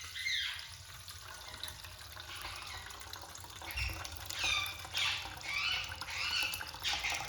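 Water being poured and strained into a container, trickling, while a pet parrot gives a run of short, falling squawks in the second half.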